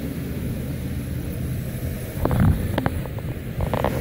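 Steady low drone of the electric blower fan that keeps the inflatable bouncy castle up. About two seconds in come a few louder thumps, and near the end a quick run of clicks and rustles from the inflatable's vinyl being handled or stepped on.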